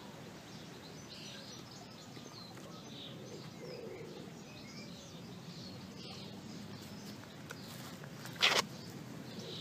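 Small birds chirping over a low steady hum of background noise. About a second before the end there is one brief, loud scuffing rustle.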